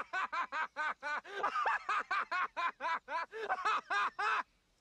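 A man laughing in a long, even run of rapid high 'ha' syllables, about four or five a second, that breaks off suddenly near the end.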